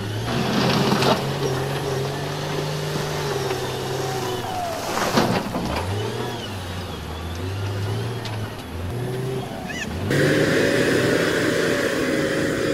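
SDLG wheel loader's diesel engine working, its pitch falling and rising as the throttle changes, with a sharp clank about five seconds in. About ten seconds in, the sound cuts to a louder, steadier diesel dump truck engine.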